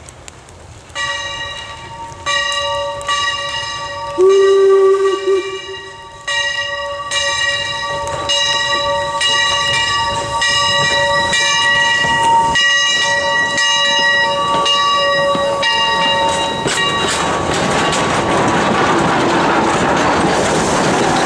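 The bell of replica American-type 4-4-0 steam locomotive Pennsylvania Railroad #331 rings over and over as the engine approaches, each stroke ringing on, with one short, loud whistle note about four seconds in. After that the engine and its coaches pass close by, and the sound becomes a steady, rising noise of running gear and wheels on the rails.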